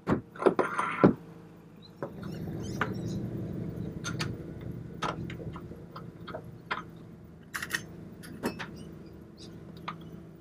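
T-handle hex key working the mounting bolts of a new boat steering helm as they are tightened: a clatter of metal handling in the first second, then scattered metallic clicks over a low steady hum.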